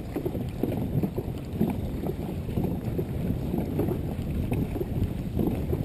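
Dragon boat crew paddling at race pace: paddle blades striking and pulling through the water amid the rush of the hull moving through it.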